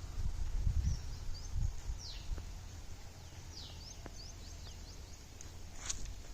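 Birds calling: several sharp calls that sweep down in pitch, with quick chirps between them, over a low rumble that fades after the first two seconds. A single sharp click near the end.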